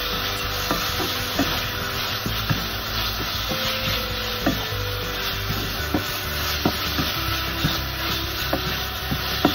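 Pork and chopped garlic sizzling in oil in a granite-coated pan while a wooden spatula stirs and scrapes through it, knocking against the pan about once a second.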